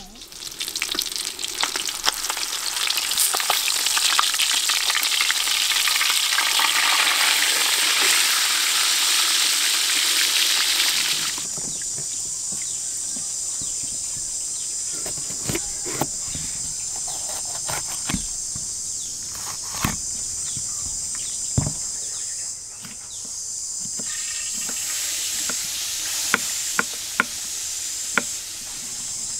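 Food sizzling loudly in hot oil with a crackling hiss for about the first eleven seconds, cutting off abruptly. Then a kitchen knife chops bell peppers on a wooden cutting board in single sharp knocks, over a steady high insect drone.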